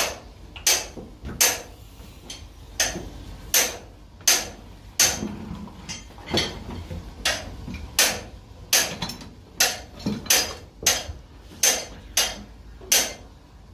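Metallic clanks at a steady beat, about one and a half a second, from a hand pump being stroked to pump oil for the engine.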